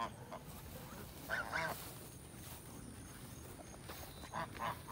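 Goose honking in two short runs of calls, one about a second and a half in and another near the end.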